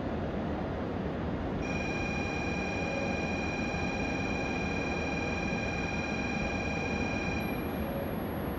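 Steady platform hum beside a standing E7 series Shinkansen train. A steady, high electronic tone starts about two seconds in and stops suddenly about six seconds later.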